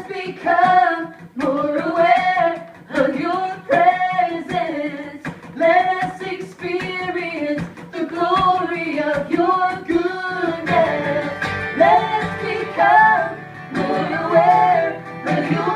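A singer performing a melody with guitar accompaniment; the accompaniment fills out about ten seconds in.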